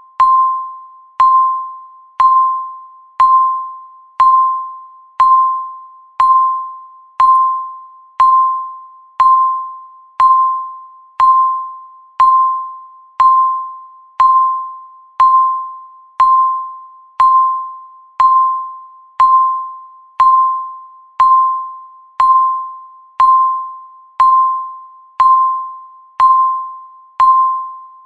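Countdown timer's tick sound: one short bell-like ding each second, marking every second as it counts down. Each strike starts with a click and rings out on one clear pitch, fading before the next.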